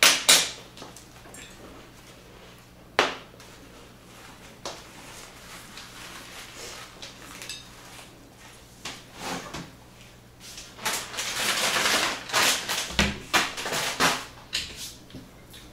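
Household handling noise at a breakfast table: sharp knocks and clinks of plates, cups and cutlery set down or moved, the loudest at the very start and about three seconds in, with a stretch of rustling and scraping about two-thirds through as someone gets up from the table.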